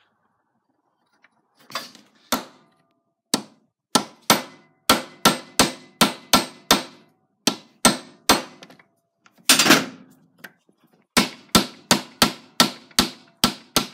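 Hammer striking a pin punch to drive a pin out of an RC drive shaft clamped in a bench vise: sharp metallic taps, about three a second, in runs broken by short pauses.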